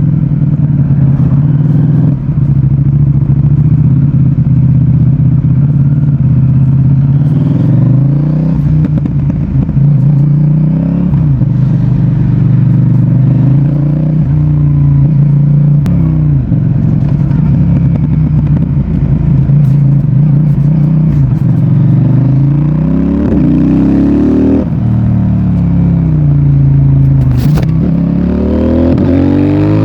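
CFMOTO 800NK Advanced's parallel-twin engine and exhaust under way. It runs steadily, then several times rises in pitch under throttle and drops back. Later it runs up through a series of quick upshifts, and rises again near the end.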